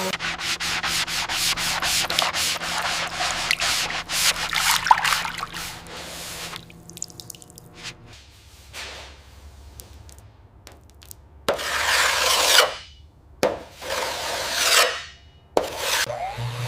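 Repeated rubbing strokes against a surface, of the kind made by sanding: about four quick strokes a second for the first six seconds, then quieter and sparser, with a few longer, louder strokes and two sharp hits in the last five seconds.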